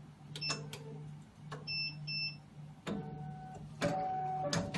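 3-part hematology analyzer running a quality-control sample: sharp mechanical clicks, two short high beeps about two seconds in, then clicks and short steady whines from its moving mechanism from about three seconds in, over a steady low hum.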